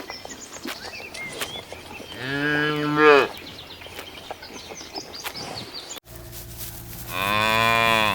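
Cow mooing twice: a long call of about a second starting about two seconds in, and another near the end. Faint bird chirps and small clicks in between.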